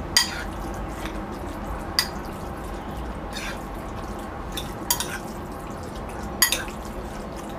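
Minced raw chicken being stirred in a ceramic bowl: wet squelching, with about five sharp clicks spread through it, over a steady low hum.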